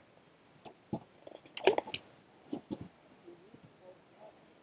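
Scattered sharp clicks and knocks from a spinning reel and rod being handled for a cast, the loudest about a second and a half in.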